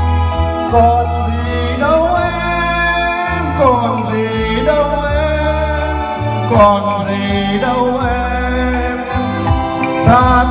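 Music with a man's singing voice played loud through a PA system with dual subwoofers, the bass line heavy under a gliding vocal melody.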